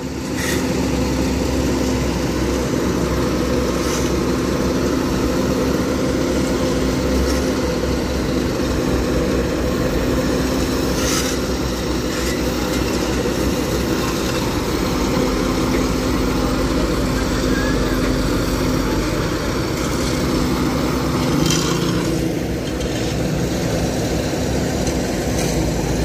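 Heavy diesel engines of asphalt-paving machinery running steadily: a continuous low rumble with a steady hum.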